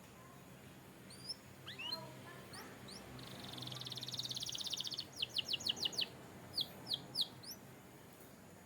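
Canary singing: a few short rising chirps, then a fast buzzy trill about three seconds in, a quick run of about seven falling notes, and three separate notes near the end.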